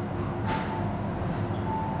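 MTR M-Train standing at an underground platform, its equipment giving a steady low hum. A sharp knock comes about half a second in, and short high beeps from the door warning signal sound at that moment and again near the end.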